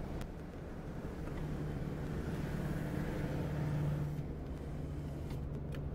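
Cabin noise of a 1975 Cadillac Sedan DeVille cruising at highway speed: a steady low drone from the 500 cubic-inch V8 and the tyres on the road. The drone swells a little in the middle and eases off again.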